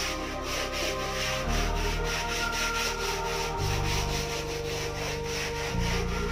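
A stiff plastic hand brush scrubbing a wet, soapy woven straw mat: quick back-and-forth strokes, about three or four a second, with a dry, scratchy rasp.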